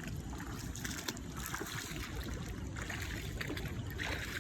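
Shallow river water sloshing and trickling, with irregular small splashes.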